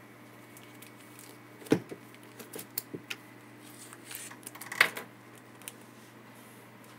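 Handling noises on a desk as a manga volume is picked up and turned toward the camera: scattered clicks and knocks with a brief rustle. Two sharper knocks stand out, one near two seconds in and one near five seconds.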